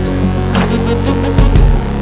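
Electronic music with heavy sustained bass and drum hits.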